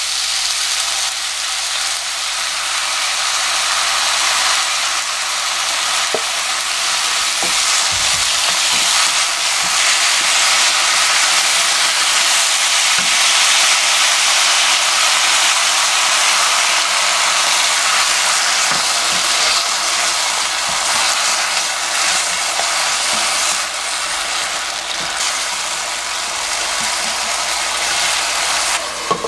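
Sliced bottle gourd sizzling in hot oil in a nonstick frying pan while being stirred with a wooden spatula, with a few light knocks. The sizzle is steady and grows louder toward the middle.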